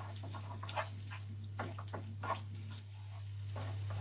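A wooden spoon stirring and scraping a tomato-paste sauce in a pan on a gas hob, in a handful of short, separate scrapes over a steady low hum. The soft sizzle of the sauce grows near the end.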